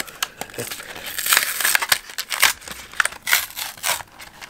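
Cardboard-and-plastic blister package torn open and crinkled by hand, the cardboard backing peeled away from the plastic shell, in irregular rustling bursts busiest in the middle.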